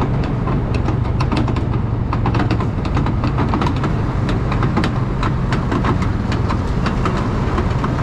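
Steady low rumble of road vehicles, with frequent sharp irregular clicks over it.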